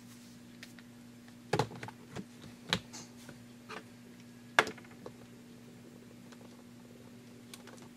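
Scattered plastic clicks and knocks as the battery is fitted back into a 2007 white polycarbonate MacBook's underside, the loudest a sharp snap about four and a half seconds in. A faint steady hum runs underneath.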